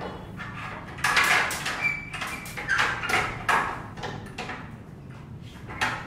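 Metal pipe being handled, giving a run of short scrapes and knocks. The loudest comes just after a second in, with a brief metallic ring about two seconds in.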